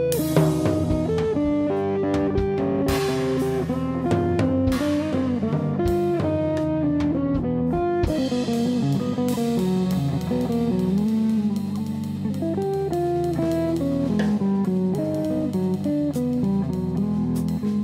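Hollow-body archtop electric guitar playing a moving line of single notes over sustained low notes, with a drum kit accompanying it with cymbal and drum strikes.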